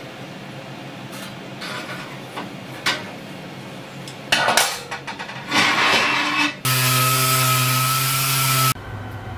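Metal clinks and knocks of scroll tongs working iron rod, then an orbital sander running steadily for about two seconds with a hum, cutting off abruptly.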